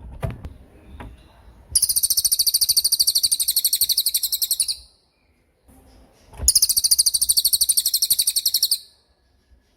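Cililin songbird singing two rapid-fire 'tembakan' trills: long runs of fast, evenly repeated high notes, each about two to three seconds long, the second starting about six and a half seconds in. A few soft knocks sound in the first second.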